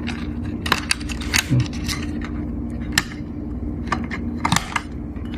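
Small irregular clicks and taps of hands working plastic cable connectors on a display's motherboard, over a steady low hum.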